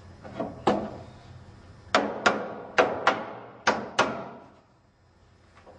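Rubber mallet knocking the edge of an ipé deck board sideways, about seven sharp blows, mostly in pairs, driving the board tight against the hidden deck clips.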